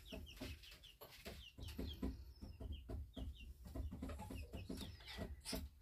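Young Silkie chicken peeping over and over, short high chirps that fall slightly in pitch, often in quick pairs, with soft splashing and handling noise as it is washed in the water.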